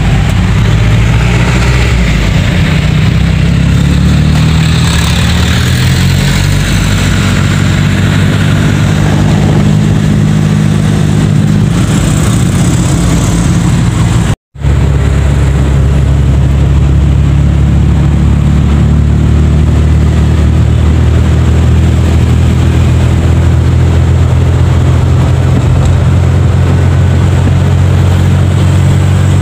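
Daihatsu Charade G10's small three-cylinder engine heard from inside the cabin while driving in traffic. Its pitch rises and falls through the first half, then it runs at a steady pitch after a brief cut to silence about halfway.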